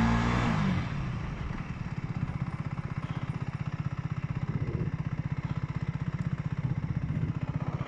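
Aprilia Tuono 125's single-cylinder four-stroke engine dropping in pitch over the first second as the bike slows, with wind noise fading, then idling with an even, rapid throb.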